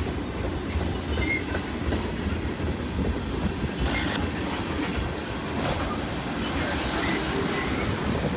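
CN freight train's cars rolling past: a steady rumble of wheels on rail with clickety-clack over the rail joints and a few faint, brief wheel squeals.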